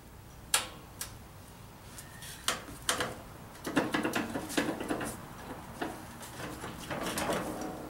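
Scattered sharp clicks and knocks, then a busier stretch of clatter and scraping, as a garden tractor's front wheel and steering spindle are handled and worked back into place.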